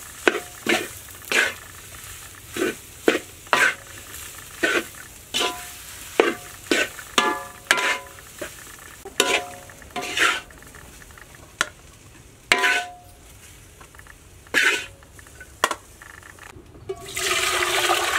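A spatula scraping and knocking against a wok as a thick mashed filling is stir-fried, in sharp strokes about one or two a second, some leaving a short metallic ring. Near the end, water pours in a steady splashing stream into a metal pot.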